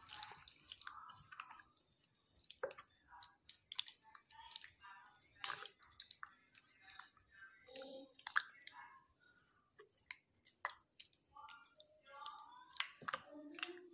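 Raw chicken pieces being mixed by hand in a thick, wet garlic-yogurt marinade in a glass bowl. There are irregular squelches and sharp little clicks against the glass, with no steady rhythm.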